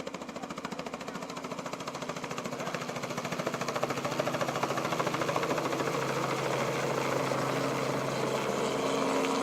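Helicopter running on the ground, its rotor beating rapidly over a steady engine hum, growing louder.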